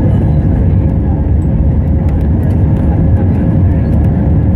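Airbus A320 cabin noise heard from a seat over the wing: a loud, steady jet engine drone and rumble while the airliner rolls along the ground, with a faint steady hum tone riding on it.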